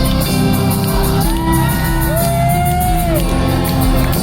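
Live band playing the slow instrumental intro of a song, with held chords over a steady bass. A voice whoops with a long rising-and-falling call about two seconds in.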